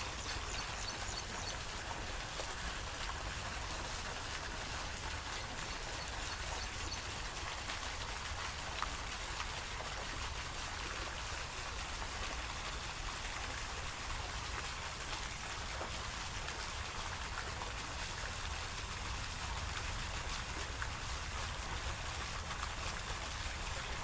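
Steady, even hiss of water with a low rumble underneath, unchanging throughout.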